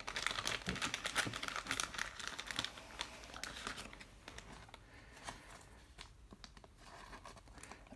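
Plastic card sleeve crinkling and rustling as a thick trading card is handled and slid into it, busiest over the first three seconds, then thinning to a few faint crackles.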